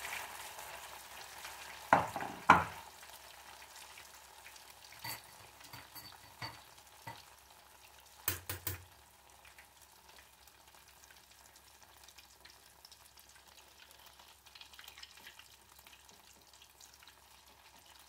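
Rice fritters frying in hot oil in an aluminium saucepan: a steady sizzle that grows fainter over the first several seconds. Sharp clinks of a metal spoon against the pot or batter bowl cut through it, two loud ones about two seconds in, a few lighter ones after, and a short cluster a little past the middle.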